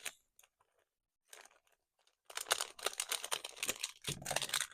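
Plastic packaging crinkling and rustling as it is handled, in a dense run of crackles that starts a little over two seconds in.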